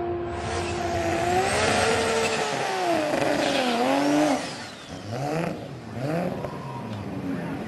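Turbocharged Toyota Supra drag car's engine going to high revs with a loud hiss of tyre or intake noise for about four seconds, its pitch swinging up and down, then dropping off suddenly and followed by several short rising revs.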